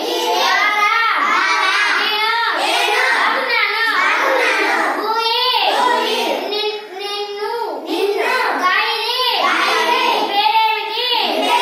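Young children singing a song in a small room, with a short break in the singing about seven seconds in.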